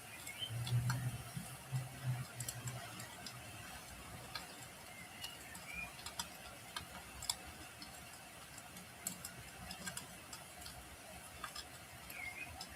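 Wood fire crackling in a fireplace: irregular sharp pops and snaps over a steady soft hiss, with a low rumble during the first few seconds.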